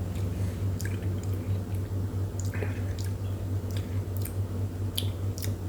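Wet mouth sounds from tasting bourbon: irregular lip smacks and tongue clicks as the whiskey is worked around the palate, over a steady low hum.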